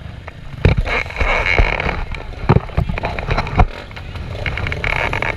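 Dirt bike engines running as a continuous noisy background. Four loud, sharp thumps sound close to the microphone in the first four seconds.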